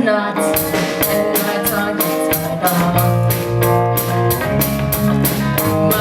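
A band playing an instrumental passage, with guitar chords over a drum kit keeping a steady quick beat of about three strokes a second.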